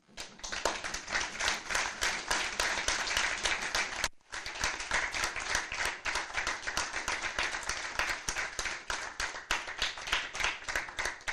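Audience applauding, many people clapping at once, briefly cutting out for a moment about four seconds in.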